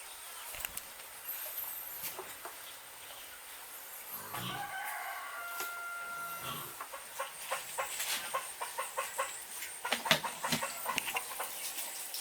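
A rooster crows once, starting about four seconds in and lasting a couple of seconds. After it comes a run of short clicks and taps.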